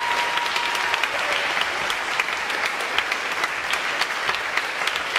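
Audience applauding steadily: many hands clapping at once in a dense, even patter.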